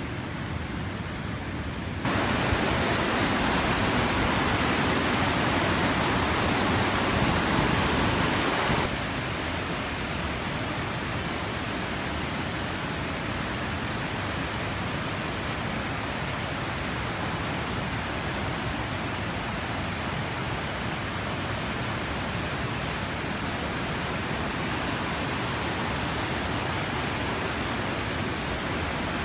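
Steady rushing of a rain-swollen river in flood. It is louder for several seconds after an abrupt step up about two seconds in, then drops back to a steadier, slightly quieter rush.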